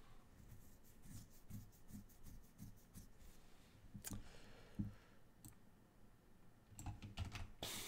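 Faint, scattered clicks of a computer mouse and keyboard, with a few louder clicks near the end.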